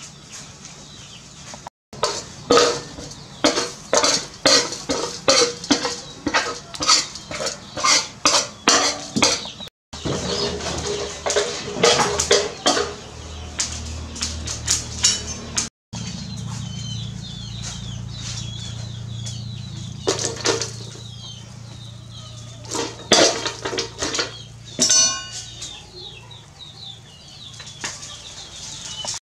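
A metal ladle clinking and scraping against a large aluminium cooking pot, in runs of sharp strikes, about two to three a second in the first half and scattered later.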